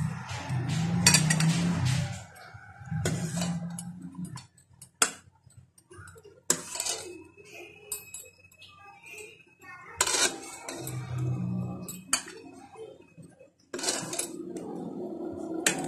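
Metal ladle clinking and scraping against a steel cooking pot as rasmalai is scooped out of the milk, with a dozen or so sharp, irregular clinks.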